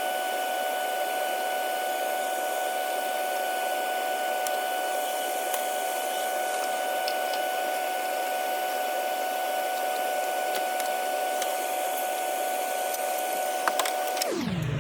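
A steady high machine whine with scattered faint clicks, which is the workshop's low background hum and tool noises played back at fast-forward speed, pitched up about fourfold. The whine drops back to a low hum near the end, as normal playback speed returns.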